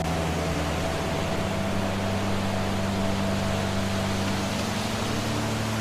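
Steady rushing noise of a waterfall, with a few low held tones of a drone-like music pad sustained underneath.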